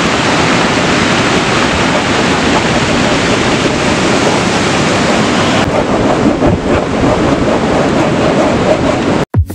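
Ocean surf breaking, mixed with wind blowing on the microphone: a loud, steady rush of noise that cuts off suddenly near the end.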